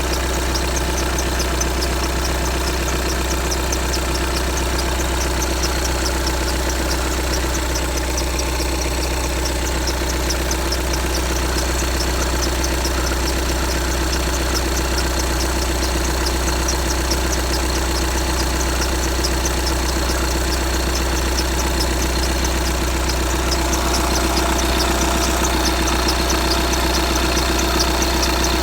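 VW Tiguan 2.0 TDI four-cylinder diesel engine idling, with a short high-pitched squeak repeating several times a second in step with the engine. The owner hears this squeak only on a cold engine, where it dies away after a minute or two; its cause is not known.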